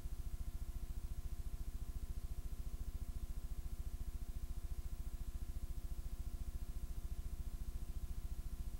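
Steady low electrical hum with a buzzy series of overtones and a fast, even flutter: mains hum on a tape's audio track with no programme sound.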